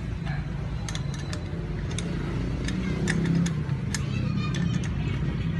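Irregular metallic clicks and clinks of hand tools on metal parts as a motorcycle disc brake is bolted on, over a steady low hum.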